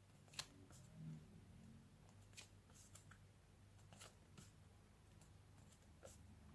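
Near silence with a low hum and a few faint clicks of paper flashcards being handled and flipped.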